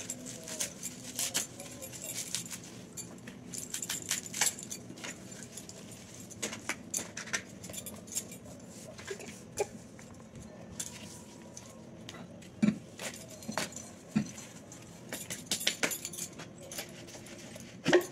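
Scattered light clicks and small metallic clinks as brass puja utensils are set down and handled, with bangles knocking together on the wrists.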